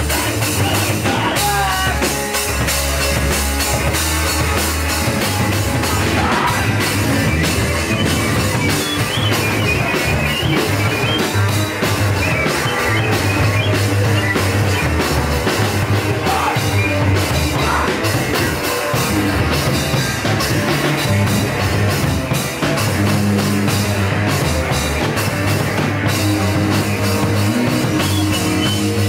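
A hardcore punk band playing live: electric guitar and drum kit at a fast, driving pace, loud and without a break.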